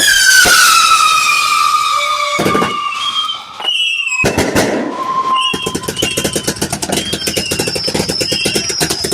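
Consumer fireworks going off. A long whistle falls in pitch over the first few seconds, then dense rapid crackling with short high whistles repeating about once a second.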